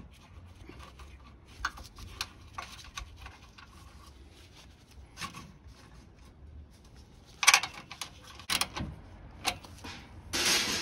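2006 Honda Civic's radiator fill cap being handled and twisted onto its filler neck: scattered light clicks and rubbing, with a sharp click about seven and a half seconds in and a few more clicks after it. A rushing noise starts near the end.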